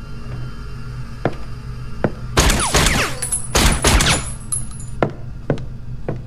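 A suppressed pistol fired rapidly in two volleys, about two and a half seconds in and again about a second later, over a low music drone. A few single sharp knocks come before and after.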